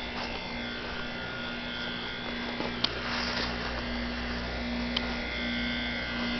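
York heat pump outdoor unit running in its defrost cycle: a steady compressor hum and buzz, with the low rumble growing a little about two and a half seconds in and a couple of faint ticks.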